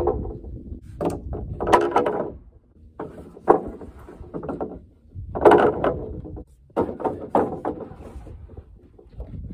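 16-foot lumber boards being laid one by one across a wooden table frame: a series of loud wooden knocks and clatters as each board drops onto the frame and onto the boards already there.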